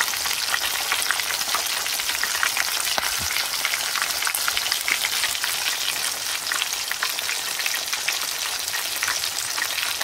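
Piranha frying in hot oil in a pan: a steady sizzle with many small pops and crackles.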